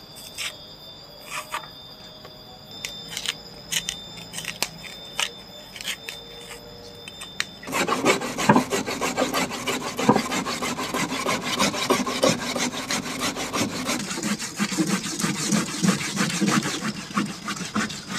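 Raw cassava being grated on a metal hand grater over a stainless-steel tray: a fast, continuous run of rasping strokes, starting about eight seconds in. Before that, a knife makes scattered sharp cutting clicks as it peels the cassava.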